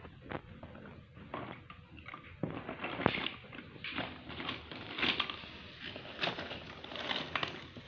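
A pink plastic toy stethoscope's chest piece being pressed, tapped and rubbed against a plush toy and a fabric pillow. It makes irregular soft clicks, knocks and rustles, busiest in the middle few seconds.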